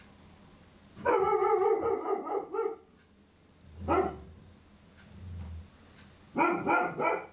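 Pet dog barking: a long drawn-out bark about a second in, a single short bark near four seconds, then three quick barks near the end.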